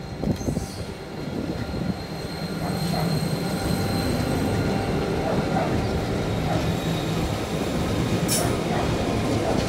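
Pacific National 81 class diesel-electric locomotives hauling a hopper train pass close by. Their engines' rumble grows louder over the first few seconds as the lead unit comes alongside, then holds steady as the second locomotive goes past. A thin high whine runs through the middle, and there is one sharp clank near the end.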